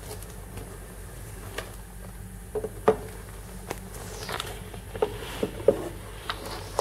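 Handling noise: scattered light clicks and knocks, with a few brief rustles, over a steady low hum. The two sharpest knocks come about 3 s in and just before 6 s.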